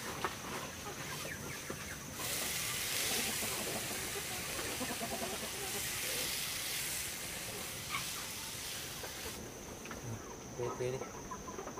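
Chickens clucking, with a steady hiss that starts abruptly about two seconds in and stops about nine seconds in.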